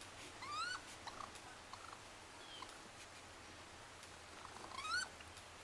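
Two faint, short rising chirp-like animal calls, about four and a half seconds apart, with a few fainter brief chirps and ticks between them.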